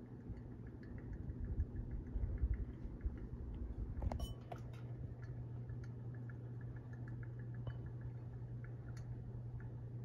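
Harbor Breeze Grace Bay ceiling fan running with a steady motor hum and light, irregular clicking, which the owner puts down to the bearings. A brief clatter comes about four seconds in.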